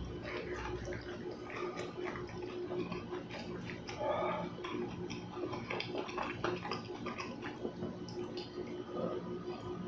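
Close-miked eating sounds of buckwheat crepe being chewed: wet, sticky chewing and mouth clicks, irregular, with a louder squelch about four seconds in.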